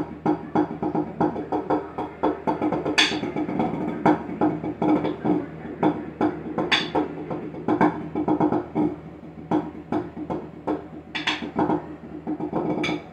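Drumsticks playing a fast marching tenor (quints/sextets) part on a multi-pad tenor practice pad: a dense run of rapid taps, with about four sharper, brighter strokes standing out.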